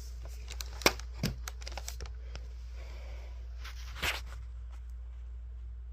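Handling noise: a few sharp clicks and crinkling, rustling sounds, with the loudest click about a second in and a short rustle about four seconds in, over a steady low hum. The vacuum motor is not running.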